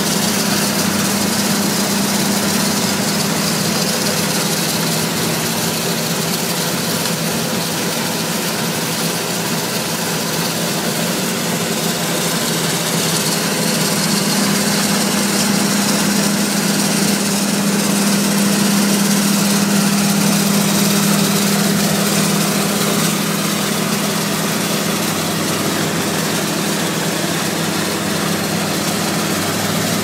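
John Deere 9770 STS combine harvester running steadily while harvesting faba beans: a constant mechanical drone with a steady low hum under a broad hiss, slightly louder in the middle.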